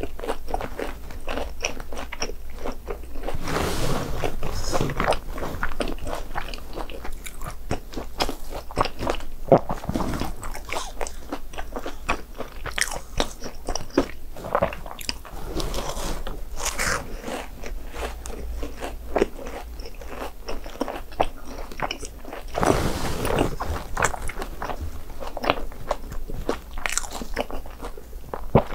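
Close-up eating of a crunchy, seasoned fried snack: crisp bites and crunching with chewing in a continuous run, with two louder stretches of biting, about four seconds in and again near the end.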